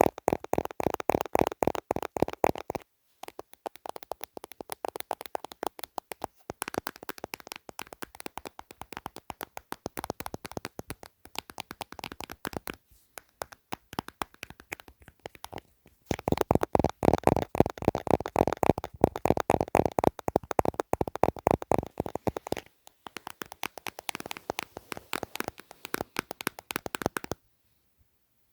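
Rapid finger tapping on a hard gadget, many taps a second, in runs. The tapping is louder and fuller in the first few seconds and again for several seconds from about the middle, and lighter in between. It stops briefly near the end.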